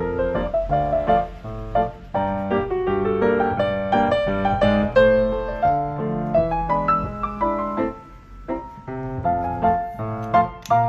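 Background music played on piano, a gentle melody of separate notes that softens briefly about eight seconds in.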